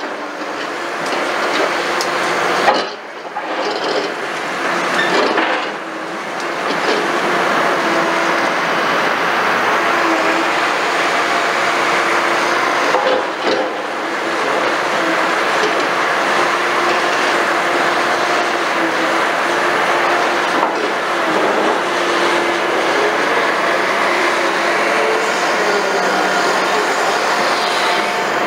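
Liebherr R960 demolition excavator working under load, its diesel engine and hydraulics running steadily while the bucket digs and scrapes through concrete rubble, with a continuous clatter and grinding of debris.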